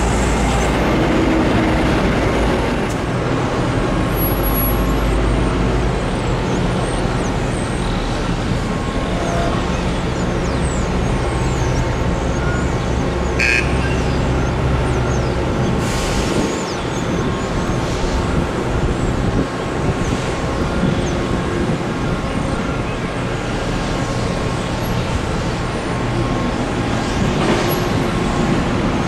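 Steady heavy-machinery noise from a sugar mill's cane yard, with diesel engines and cane-handling equipment running. A deep low rumble eases after about six seconds, and a few brief knocks sound later on.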